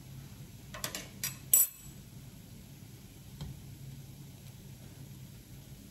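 Metal utensils clinking against a non-stick appe pan while cooked appams are lifted out: three sharp clinks about a second in, the last the loudest, then a lighter tick, over a faint steady low hum.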